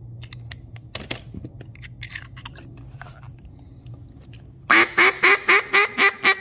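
A J-frame single-reed duck call is blown in a quick, loud run of about eight quacks near the end, a test blow after the reed has been trimmed shorter; the call is now sounding close to tuned. Before it come a few faint snips of scissors cutting the reed.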